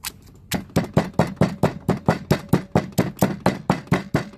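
Repeated kitchen knocking: a utensil striking hard and evenly, about four or five strokes a second, starting about half a second in.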